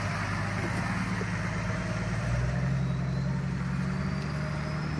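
Off-road 4x4's engine running at low revs as it crawls up a steep, rocky slope; the engine note rises and gets louder about halfway through. A faint high whine climbs slowly in pitch near the end.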